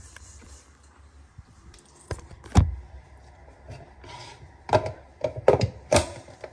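Several sharp hard-plastic knocks and clicks, the loudest about two and a half seconds in and a quick run of them near the end, as a Ninja Creami pint tub is set down and fitted into its outer bowl and lid.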